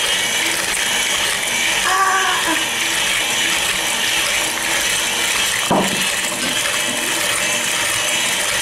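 KitchenAid Classic stand mixer running steadily, its beater churning pastry dough in the steel bowl, with one brief sharp knock about six seconds in.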